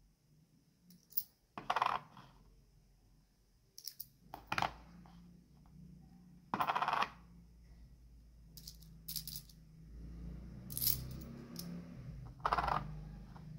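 Metal coins clinking as they are picked from a handful and set down one at a time on a hardcover board: short sharp clinks every second or two, some in quick pairs.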